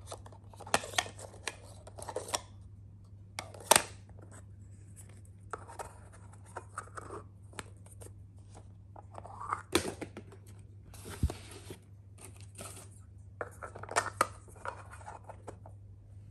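Plastic stacking cups being handled, nested and stacked, with a panda-head topper set on them: irregular sharp plastic clicks and short scrapes, over a steady low hum.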